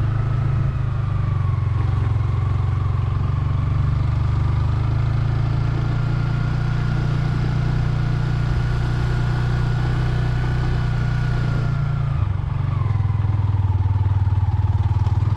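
Motorcycle engine running as it rides along, a steady low drone with a whine that rises and holds, dips about three-quarters of the way through as it slows, then climbs again near the end.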